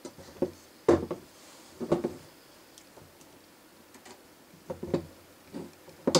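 Scattered small knocks and clicks of a screwdriver and screw being handled against a 1:8 scale model's ladder frame on a cutting mat while a screw is set in place. A handful of separate taps, the loudest about a second in and just before the end.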